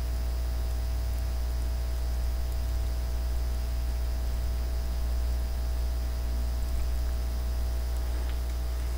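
Steady low electrical hum with a layer of hiss, unchanging throughout: mains hum and noise picked up by the recording microphone while nothing else sounds.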